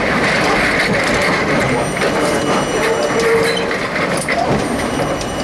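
R32 subway car noise from inside the front car: a steady mechanical rumble with scattered clicks and a held mid-pitched tone near the middle.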